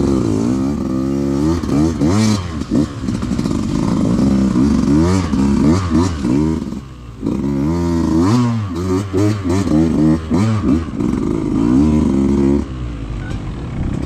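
Enduro motorcycle engine revving hard and falling back again and again, every second or so, as the bike is forced through thick bracken, with scattered knocks and clatter. It settles to a lower, steadier note near the end.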